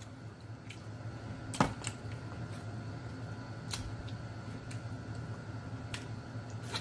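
King crab leg being broken open and its meat picked out with a fork: a few sharp clicks and cracks of shell, the loudest about a second and a half in, over a low steady hum.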